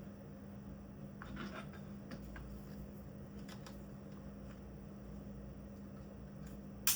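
Light clicks, taps and scrapes of small drill parts being handled and worked on by hand, ending in one sharp click near the end, over a steady low hum.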